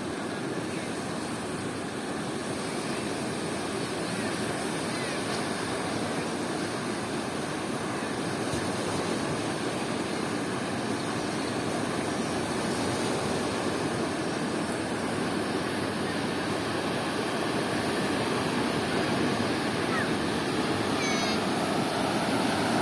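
Steady rushing of big waves on a river, growing slowly louder.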